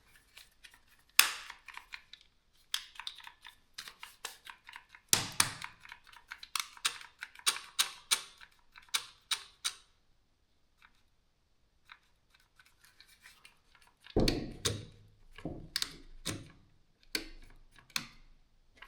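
Irregular clicks and knocks of a DeWalt DCD778 cordless drill being handled and its trigger worked, with a few heavier thuds and no motor running: the drill does not turn, which the owner suspects is a bad switch.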